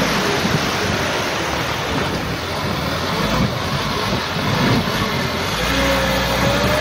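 Heavy wind buffeting on the microphone over a truck engine running as it drives through mud; the engine's note comes through more clearly near the end.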